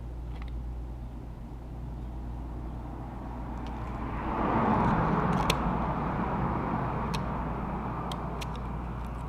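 Small sharp clicks and taps of tiny parts and a tool being handled over a steady low hum. About four seconds in, a passing vehicle swells up to become the loudest sound, then slowly fades.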